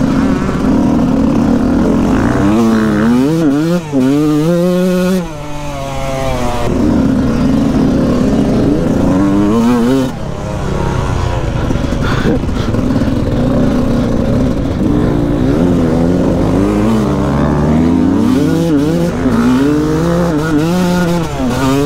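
Motocross bike engine heard from on board while riding a dirt track, its revs rising and falling through the gears. The throttle is briefly shut off a few times, about five and ten seconds in.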